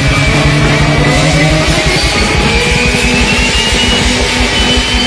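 Loud, dense noise-rock from an ensemble of rock rhythm-section instruments, guitars among them, playing as a cacophonous wall of sound over fast low pulsing. A high tone rises slowly in pitch through the middle.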